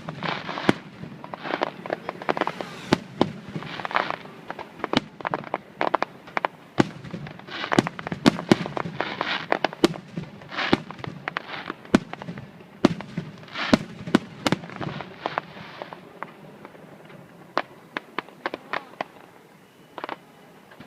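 Aerial fireworks going off: a dense run of sharp bangs and crackling bursts that thins out about three quarters of the way through, leaving scattered bangs near the end.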